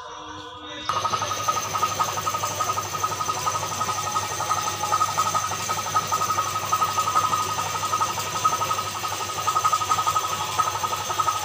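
A small motor starts abruptly about a second in and runs steadily, with a constant high whine over a fast flutter.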